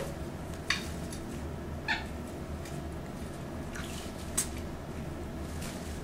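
Three short, sharp parrot chirps, a little under a second in, about two seconds in and about four seconds in, over a steady low hum.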